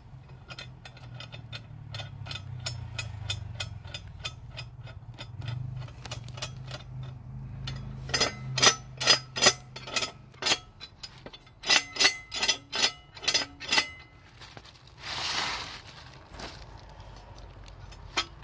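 Cast iron parts of a small wood stove clinking and knocking as the ash tray and its metal pin handle are fitted: a run of light clicks, then two clusters of sharp metal knocks, about two to three a second, and a brief scrape near the end as the cast iron grate is handled.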